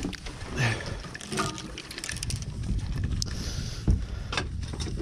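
Low rumble of wind and handling noise on the microphone, with several short knocks and clicks of gear being moved about on the boat.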